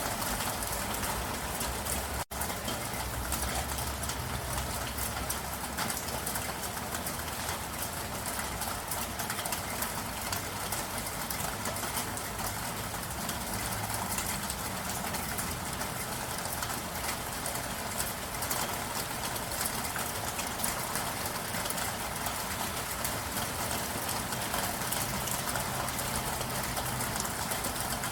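Steady rain falling, a dense patter of many small drops over an even hiss. The sound cuts out for an instant about two seconds in.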